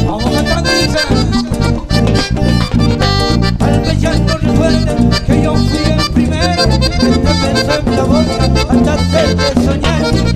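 Instrumental passage of a live cumbia band: an accordion carries the melody over bass guitar and percussion with a steady dance beat.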